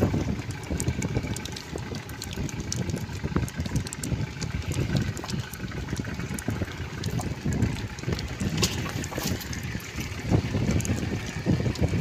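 Wind buffeting the microphone on a small wooden boat at sea, with choppy waves splashing and slapping against the hull and small water splashes from the longline being hauled in.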